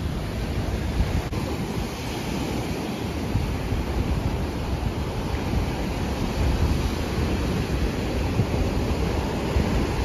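Atlantic Ocean surf washing onto a beach as a steady noise, with wind blowing on the microphone.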